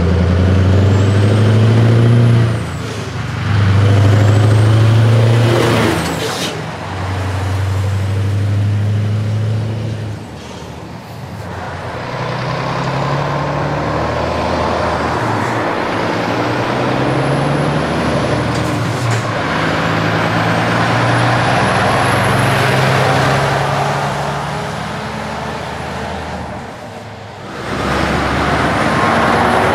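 Scania truck engines with loud open exhausts pulling away through the gears. The first one is loudest, with its note climbing and dropping off at each of three gear changes in the first ten seconds. Further trucks follow with engine and tyre noise and short hisses of air, and a truck passes close near the end.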